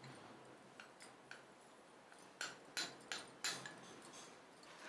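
Faint, light taps of a spoon against a small glass bowl, about six of them spread over a few seconds, knocking the last of the ground cashew-almond powder out into the pot.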